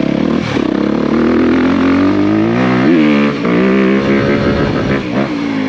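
2023 Honda CRF250R's single-cylinder four-stroke engine revving as the dirt bike rides along, its pitch climbing to a peak about three seconds in, then dropping and holding fairly steady.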